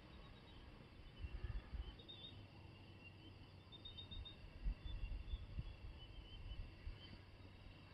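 Faint night ambience of small, high chirps, typical of night insects. Low bumps and rumbles from handling of the phone come in and out, the loudest about four and a half seconds in.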